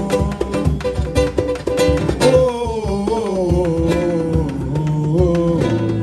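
Live samba: an acoustic guitar strumming over the steady beat of a long hand drum and a pandeiro, with voices singing a wordless melody over the top.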